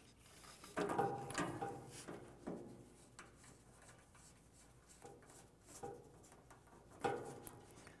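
Faint rubbing and a few soft knocks as a power cord and its plastic strain-relief fitting are slid and pressed into a hole in a table saw's sheet-metal cabinet.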